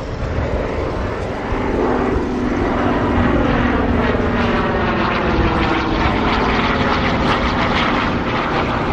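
Piston engine of a propeller aircraft running; its pitch falls over the first couple of seconds, then holds steady.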